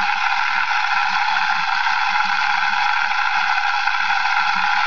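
Steady hiss of background noise, with a faint, uneven low hum underneath.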